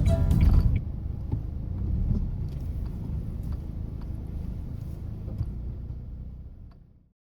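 Low, steady rumble of a kei car on the move, heard from inside, with a few faint clicks; it fades out near the end. Piano-backed music ends about a second in.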